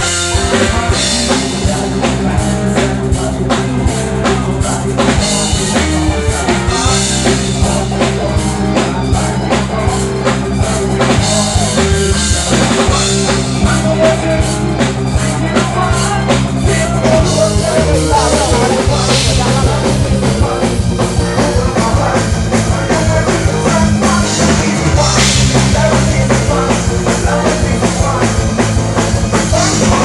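A live rock band playing loudly at a sound check, with the drum kit's bass drum, snare and rimshots prominent over bass and guitars.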